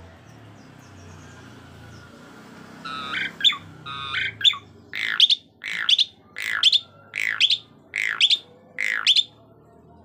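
Caged pied myna (Asian pied starling) calling: about three seconds in a few short squeaky notes, then a run of six loud, sharply descending whistled calls, roughly one every 0.7 s, stopping about nine seconds in.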